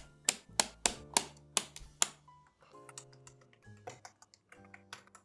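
A quick run of sharp plastic clicks, about three a second, as parts of a mechanical keyboard are pressed into place during assembly. The clicks thin out to softer ticks after about two seconds, over quiet background music.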